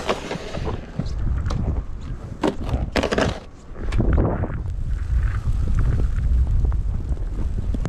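Snow shovel scraping and crunching through snow in irregular strokes, with wind rumbling on the microphone.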